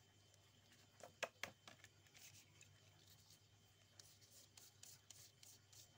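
Faint scratching and rubbing of a hand and wooden stick on a rainbow scratch-art card, with two sharp clicks a little over a second in and light scattered ticks after.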